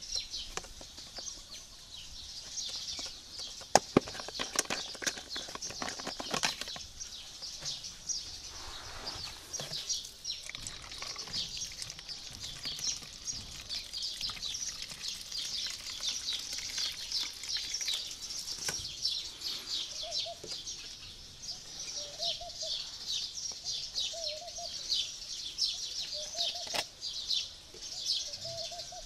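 Many small birds chirping continuously, with a few sharp plastic crackles from a clear plastic bottle being handled about four seconds in. From about two-thirds of the way through, a lower short call repeats every couple of seconds.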